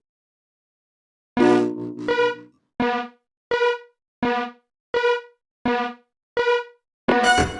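Railroad level-crossing alarm ringing: after a longer first tone, short pitched dings repeat about every 0.7 seconds, each one dying away quickly. Music cuts back in near the end.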